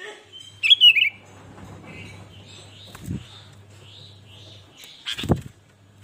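Caged sooty-headed bulbul chirping: a loud quick burst of warbled chirps about half a second in, then softer short notes repeated about once every half second. Near the end comes a thump with a brief flutter of wings as the bird leaves its perch.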